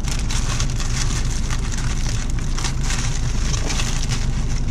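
Thin paper bagel wrapper crinkling and rustling in the hands as it is unwrapped, a dense run of small irregular crackles, over a steady low rumble.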